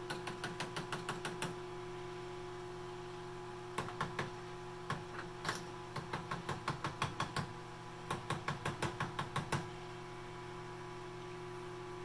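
Rapid light taps on the relay of a Jenn-Air microwave's control board, coming in several quick runs, over the steady hum of the microwave running at full power. The tapping is a check for arcing or pitting in the relay contacts; the microwave hums as if running but does not heat the water.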